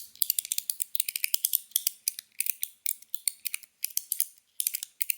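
TIER I Guandan Mini Slider fidget being slid back and forth by hand, giving quick runs of sharp, bright clicks, several a second.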